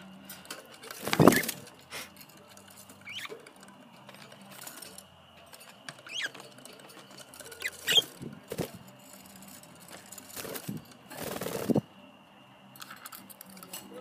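Pet budgerigars giving a few short, thin chirps, with several louder bursts of noise, the loudest just over a second in.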